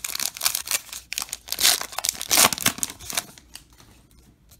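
Crinkling and tearing of a trading-card pack's wrapper as it is ripped open by hand, a dense run of crackles that is loudest in the middle and stops about three seconds in, leaving only faint handling.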